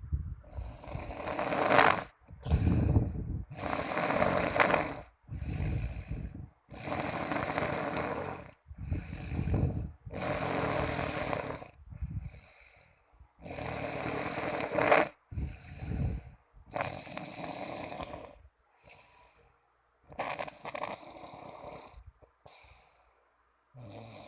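Snoring: a long snore alternating with a shorter, softer one in a regular breathing rhythm, one cycle about every three seconds. The breaths grow fainter near the end.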